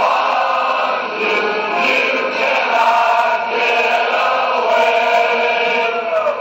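Choral music: a choir of voices chanting and singing held notes together, at a steady level.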